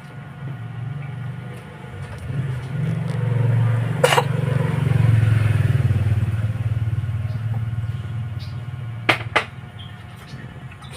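Domestic cat purring: a steady low rumble that swells in the middle and eases off toward the end. A sharp click comes about four seconds in, and two more come close together near the end.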